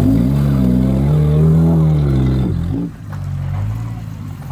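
Off-road 4WD's engine revving hard: the pitch climbs over the first second and a half, holds, then falls away, and just under three seconds in the revs drop back to a low, steady running note.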